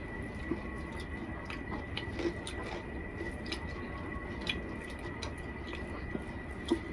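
A person chewing and eating: scattered soft clicks and squishy mouth sounds over a steady low hum, with a thin steady high tone throughout.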